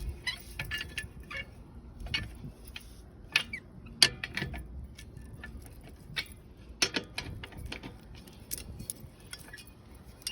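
Irregular metallic clicks and clinks of a lug wrench working on the lug nuts of a spare donut wheel as they are twisted tight, with the sharpest knocks about three and a half and four seconds in.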